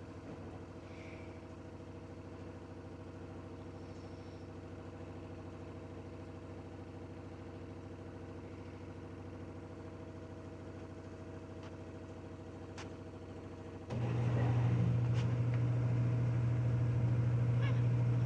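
Washing machine in its spin cycle, humming steadily with several even tones. About fourteen seconds in, a deeper, louder hum cuts in as the motor drives the drum again.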